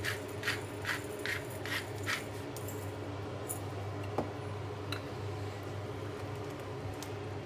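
Hand-twisted salt grinder grinding salt, a run of about six evenly spaced gritty crackles in the first two seconds, then stops. A steady low hum and a few faint ticks follow.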